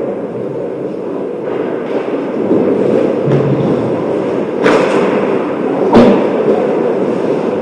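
Ice hockey skating on a rink: skates scraping and carving the ice over steady arena noise. There is a short hissing skate scrape just under five seconds in, and one sharp knock about six seconds in, the loudest sound.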